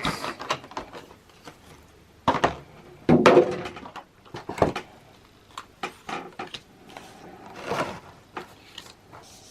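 Trading cards handled and laid down on a table: irregular taps, slides and rustles, with a few louder bursts of handling about two, three and eight seconds in.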